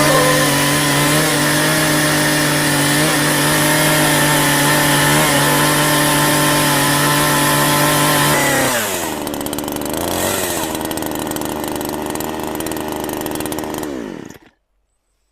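Chainsaw engine running at high revs with a steady note. About nine seconds in it drops to a lower pitch and slowly winds down, then cuts off shortly before the end.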